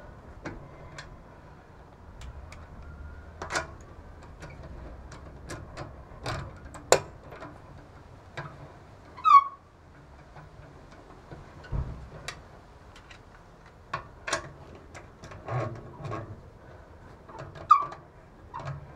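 Wheel bolts being threaded into the hub and snugged with a wrench: scattered metal clicks and taps. Two short, loud squawking calls, like a bird's, cut through about nine seconds in and again near the end.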